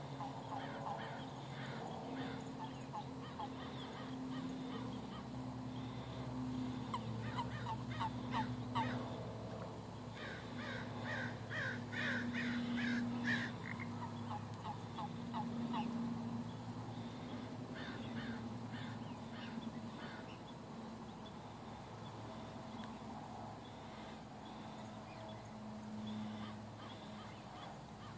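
Frogs croaking: repeated bouts of fast pulsed calls, each bout lasting a few seconds, the loudest about ten to thirteen seconds in, over a low steady hum.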